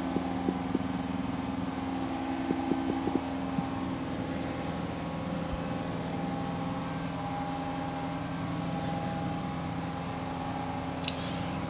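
Washing machine running with a steady hum of several fixed pitches, near the end of its cycle. A few light clicks in the first four seconds and one sharp click near the end.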